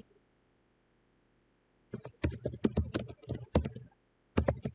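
Computer keyboard typing: a quick run of keystrokes starting about two seconds in, then a few more keystrokes near the end.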